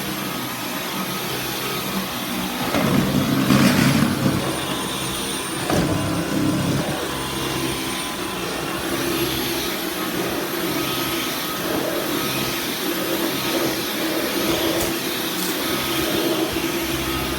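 Dyson V11 cordless stick vacuum running: a steady rush of air with a thin high whine. It gets louder for a couple of seconds about three seconds in, and there is a single knock about six seconds in. The whine steps slightly lower about four seconds in and back up near nine seconds.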